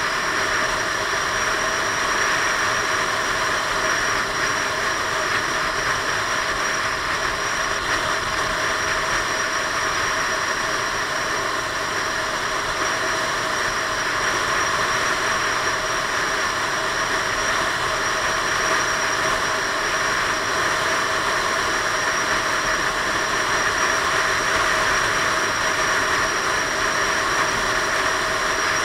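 Steady wind rush over the camera's microphone mixed with the drone of a Piaggio Beverly 500 scooter's engine, held at a constant cruising speed.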